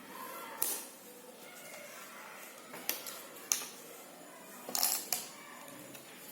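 Jigsaw puzzle pieces being handled and set down, giving about five light clicks and taps spread irregularly.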